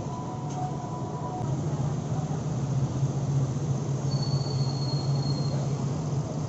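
Steady low rumble of a large vehicle, with a thin high whine from about four seconds in that lasts about a second and a half.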